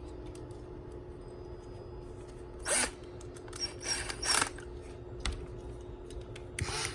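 Handling noise from working on a push-button switch and its wiring: a few short scraping rustles, about three seconds in, around four seconds and again near the end, over a steady low hum.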